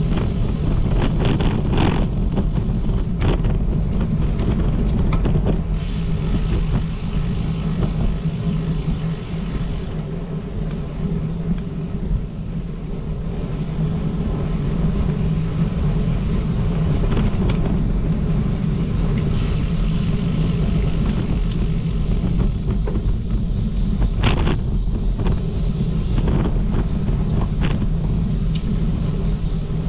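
Steady low rumble of wind buffeting the microphone and ground noise while riding, with occasional short rattles and clicks, a cluster near the start and a sharper one past the middle.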